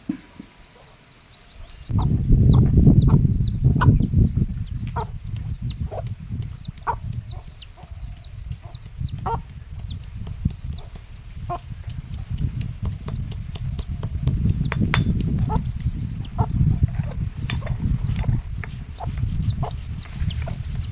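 Chickens clucking, with many short high peeps from chicks, over a loud low rumble that starts about two seconds in, and scattered sharp clicks.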